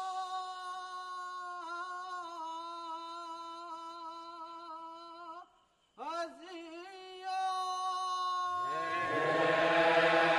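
Balinese kecak chant: a single voice holds long, wavering notes, breaks off briefly about halfway, and comes back in with a rising glide. Near the end a chorus of lower voices joins and the sound grows louder.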